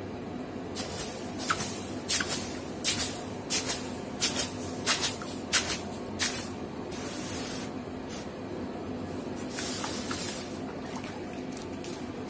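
Red-hot steel dao blade being quenched in a basin of water, hissing and sizzling in a dozen or so short bursts over about six seconds, with a few more near the end. It is the hardening quench of the freshly forged blade.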